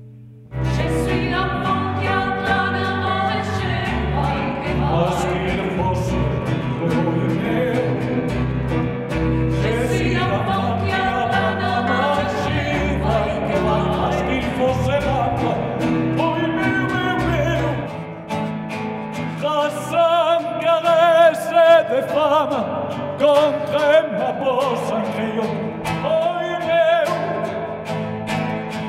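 Live music: several voices singing sustained harmonies over bass and acoustic guitar, starting abruptly about half a second in. About two-thirds of the way through, the low bass drops away and singing with a wide vibrato carries on.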